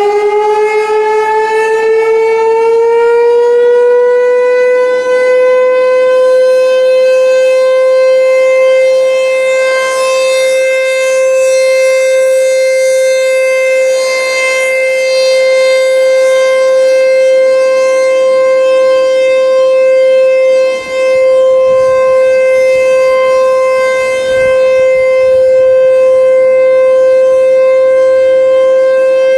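American Signal T-128 electromechanical rotating warning siren sounding a steady full-alert tone. Its pitch climbs over the first few seconds as the rotor winds up to speed, then holds level, swelling and fading slightly as the horn turns.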